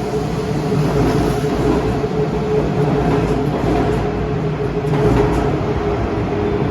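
Electric train running at a station platform: a steady rumble with a held motor hum and a few faint clicks from the wheels.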